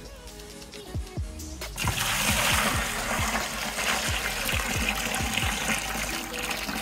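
Water poured from a blue plastic container splashing into a plastic bucket, starting about two seconds in and going on steadily. Background music with a repeating deep, falling bass note plays throughout.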